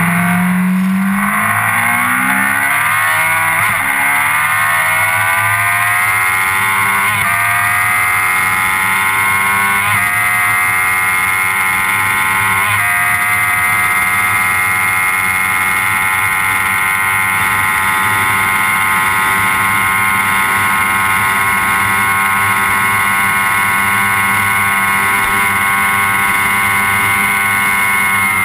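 Sport motorcycle engine under full-throttle acceleration. Its pitch climbs through the gears, dropping back at each of four upshifts in the first half, then holds a steady high pitch at high speed.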